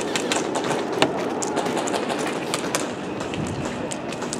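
Airsoft guns firing: sharp clicking shots in short, irregular strings, the loudest about a second in, thinning out in the second half.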